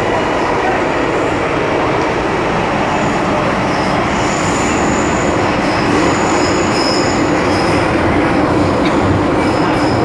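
MTR M-Train electric multiple unit running through a tunnel, a steady loud rumble of wheels on rail heard from inside the car. Thin high-pitched wheel squeals come and go from about three seconds in.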